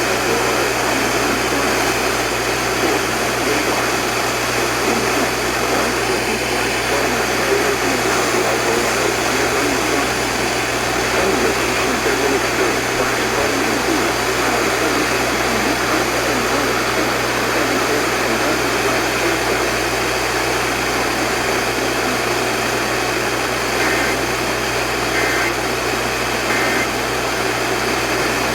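Radio receiver static: a loud, steady hiss over a low hum. Near the end, three short, faint two-pitch data bursts about a second apart come through the noise, the Emergency Alert System end-of-message code.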